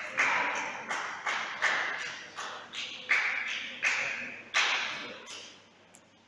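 Table tennis ball bounced over and over, about three sharp bounces a second, each ringing in the hall; the bouncing stops near the end.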